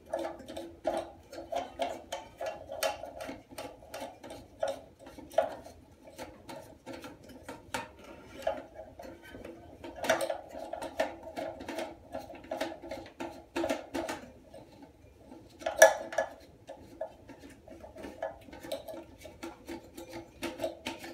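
Irregular clicking and knocking of plastic flush-valve parts against the inside of a porcelain toilet tank, ringing hollow, as the old flush valve is worked loose by hand; one sharper knock about three quarters of the way through.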